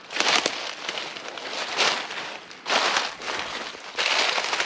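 Footsteps crunching through dry fallen leaves, about four steps roughly a second apart.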